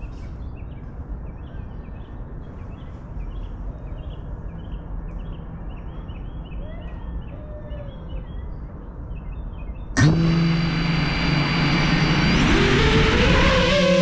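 Low outdoor hum with birds chirping, then about ten seconds in an FPV quadcopter's motors spin up with a sudden loud whine. The whine climbs in pitch a couple of seconds later as the drone takes off.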